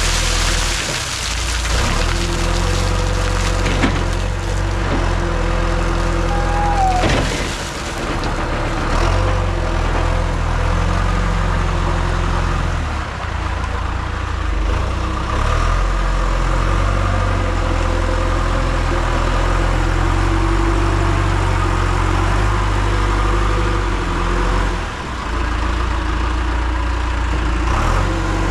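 John Deere 310SE loader backhoe's diesel engine running, its note dropping and picking up again several times as the machine works, with crackling, crunching noise over it.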